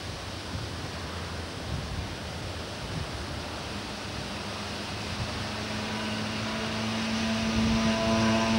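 Wind buffeting the microphone, then from about four seconds in a steady hum with a few overtones that grows louder: a Y2 diesel multiple-unit train approaching the crossing.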